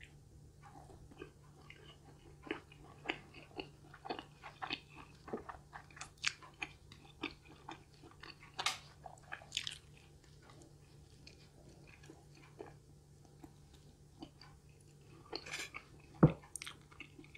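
Close-miked chewing of pizza: soft crunches and wet mouth clicks scattered irregularly, with one sharp, louder knock near the end.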